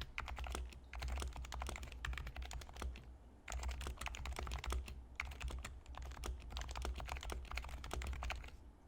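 Typing on an HHKB Professional 2 keyboard with lubed 45g Topre switches silenced with hyperspheres: quick runs of soft keystrokes, broken by brief pauses twice.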